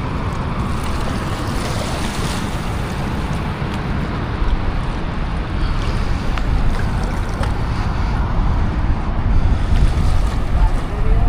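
Water pouring down a dam spillway, a steady rushing noise, with wind buffeting the microphone.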